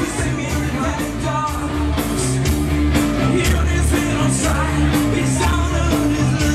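Live rock band playing with a singer: electric guitar, drums and keyboards over a steady beat and a low bass line.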